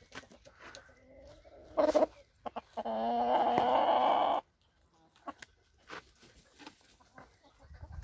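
Rooster crowing once, one long call about three seconds in, after a short loud squawk; chickens cluck softly around it.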